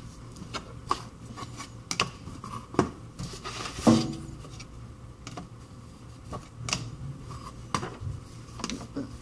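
Small hard clicks and taps of phone parts and small tools being handled on a work surface, with a brief rustle about four seconds in.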